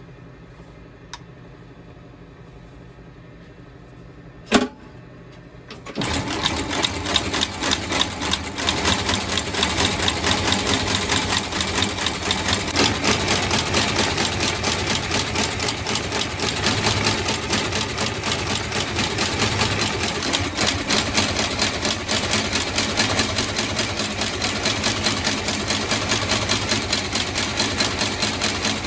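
A sharp knock, then a cobbler's stitching machine starts up about six seconds in and runs steadily, with a rapid, even stitching beat.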